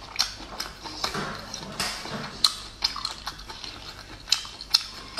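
Close-up chewing of braised abalone, with wet mouth smacks and a string of short, sharp clicks, about five of them louder than the rest.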